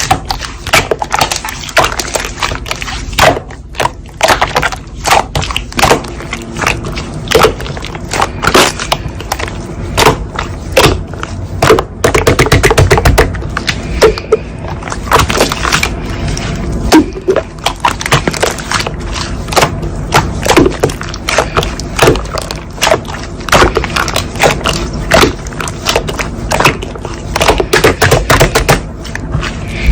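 Slime being squeezed and pressed by hand, with dense, irregular sticky clicks and pops.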